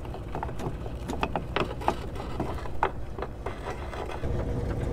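Anchor chain being hauled in, its links clanking irregularly as they come up the deck pipe and pile into the chain locker, over a steady deep hum of the hauling machinery.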